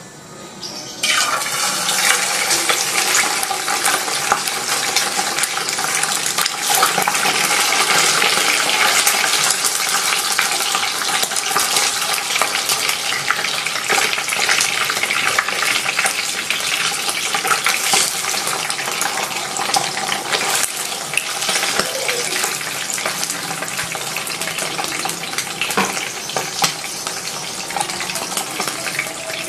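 Hot oil in a non-stick frying pan starts sizzling loudly about a second in as split dried milkfish is laid in, then keeps up a steady sizzle with constant fine crackling and spattering.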